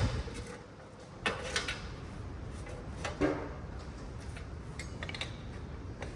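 A few short metal clicks and clinks, a couple with a brief ring, spaced about a second and a half apart: lug nuts being picked up and handled before they are started on the wheel studs.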